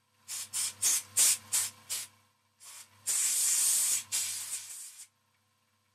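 Compressed-air blow gun blasting metal chips off a steel block in a milling vise: a quick series of short hissing puffs, then one longer, louder blast about three seconds in that tails off.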